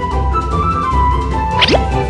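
Upbeat background music with a steady bass beat. About one and a half seconds in, a short rising sound effect cuts through it.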